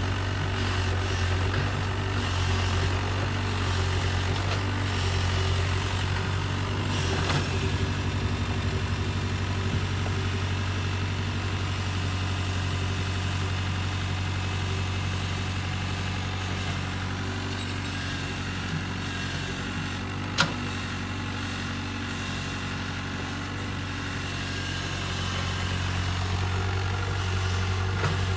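Kobelco excavator's diesel engine running steadily with a low drone, and one sharp click about two-thirds of the way through.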